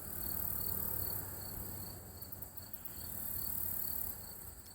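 Late-season insects chorusing: a high, shrill trill swelling and fading in waves, with a lower chirp pulsing evenly at about three beats a second, over a low rumble of distant road traffic.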